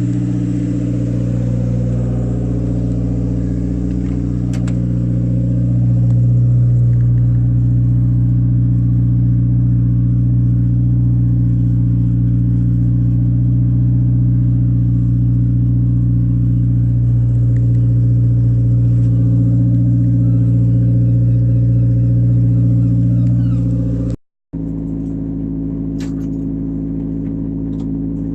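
Toyota Starlet EP82 engine running at steady revs while the car is driven, a continuous drone, broken by a brief cut near the end.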